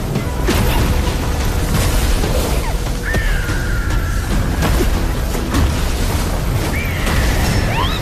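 Dramatic film score over repeated booms and crashing impacts of fiery explosions. A high, drawn-out cry sounds about three seconds in, and short high squeaks come near the end.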